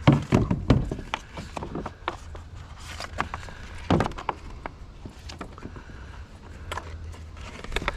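Knocks and clatter of a kayak seat's tubular frame being handled and fitted onto the plastic deck. A cluster of knocks comes in the first second and another knock about four seconds in, with scattered small clicks between.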